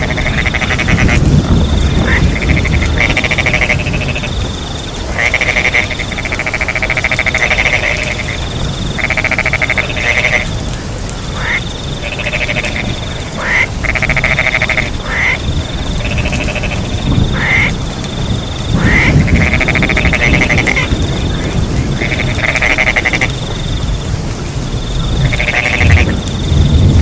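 Frogs calling over and over, each croaking call about a second long, some rising in pitch. High insect chirping switches on and off in short regular pulses, over a steady wash of rain with a low rumble.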